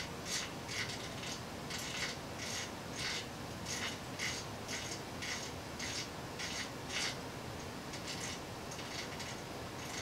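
Rotary control knob on a 3D printer's LCD controller clicking as it is turned quickly in short flicks, about two clicks a second, growing fainter after about eight seconds.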